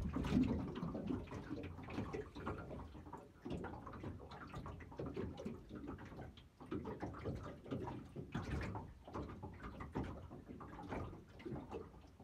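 Water lapping and slapping against the hull of a small boat, with irregular knocks.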